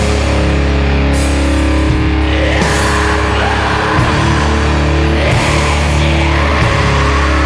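Sludge doom metal: distorted electric guitars and bass holding long, slow chords, with cymbal crashes over the top.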